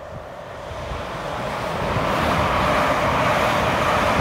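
ScotRail electric multiple-unit passenger train approaching and passing close by, its wheels running on the rails. The sound grows steadily louder over the first two seconds, then holds loud as the carriages go past.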